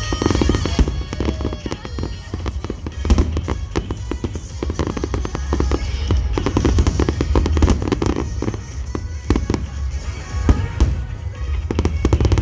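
A large aerial fireworks display: shells bursting in quick succession, dense crackling over a continuous low booming rumble. Music played through big outdoor loudspeakers runs underneath.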